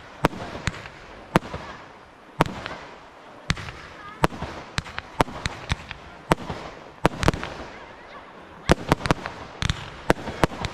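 Fireworks display: sharp bangs from comets and shells firing, about one or two a second, over a steady hiss from the burning effects. A quick run of cracks comes close together near the end.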